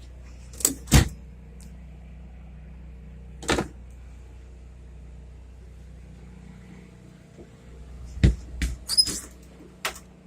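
A series of sharp knocks and clacks over a steady low mechanical hum: two close together about a second in, one more a few seconds later, and a quick cluster near the end.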